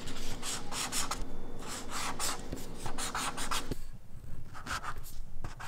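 Marker pen scratching across sticky notes in a series of quick strokes, crossing out words.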